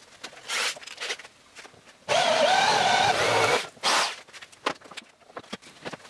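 Corded electric drill boring into the top of a wooden box: about a second and a half of running with a wavering motor whine, then a short second burst. Small handling knocks and rustles before and after.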